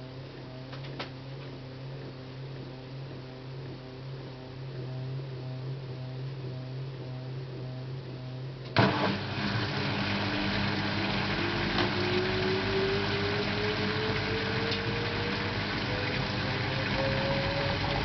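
LG 12B8ND front-loading washing machine running with a low steady hum that pulses slowly, then, about halfway in, a sudden knock as it jumps louder and the drum speeds up into spin, its motor whine slowly rising in pitch. This spin is where the owner hears a clicking from the lower right side of the machine.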